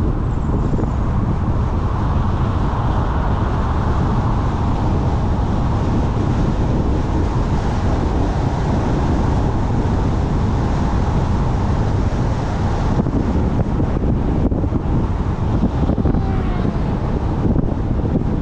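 A car driving steadily, with constant tyre and road noise and wind buffeting the microphone.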